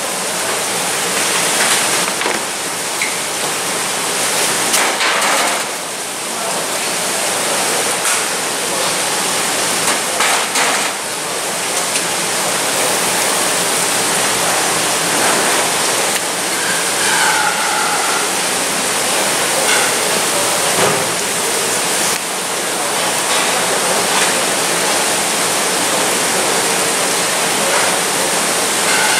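Steady rush of running water, with a few faint knocks of handling on the board.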